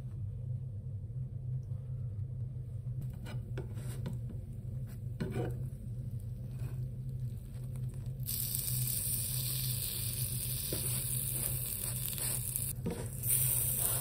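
An egg-and-cheese tortilla wrap sizzling in a hot nonstick frying pan, the sizzle starting loudly about eight seconds in. Before it, a few light knocks from the pan and spatula over a low steady hum.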